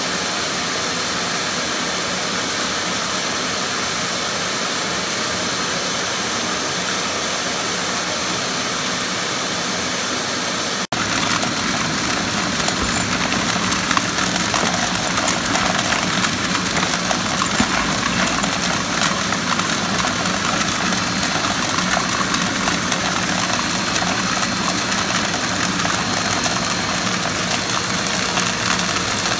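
Shop vacuum motor running steadily, pulling air up through a homemade air-column separator for cracked black walnuts. About 11 seconds in the sound becomes a little louder, with a scattered clicking rattle of shell and nut pieces tumbling down the column.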